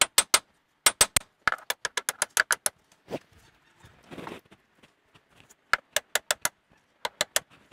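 Hammer tapping metal on metal in quick bursts of light strikes, seating the tapered stud of a new outer tie rod end into the steering knuckle. There is a brief rustle of handling midway.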